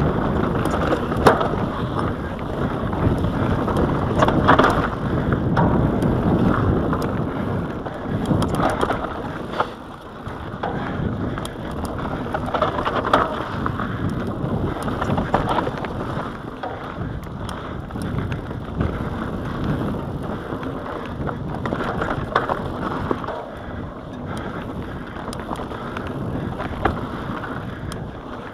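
Giant Anthem full-suspension mountain bike descending a dry, rocky dirt singletrack: tyres crunching over the loose surface and the bike rattling and knocking over bumps, with wind buffeting the microphone. The noise drops briefly about ten seconds in.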